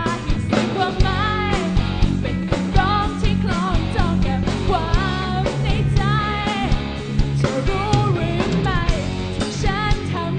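A live rock band playing: a woman singing lead over electric guitars, bass guitar and a drum kit.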